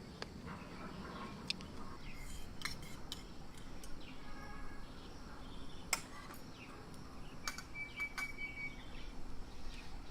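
Scattered sharp clinks and taps, like utensils or cookware being handled, with short bird chirps and a brief whistled note between them.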